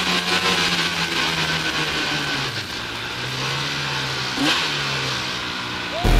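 Arctic Cat snowmobile engine running steadily as the sled rides through snow, the engine note easing off about two and a half seconds in.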